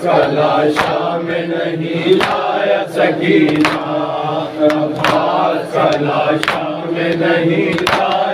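Noha chanted by a lead male voice and a group of men, with matam: open-hand slaps on the chest striking a steady beat about every three quarters of a second.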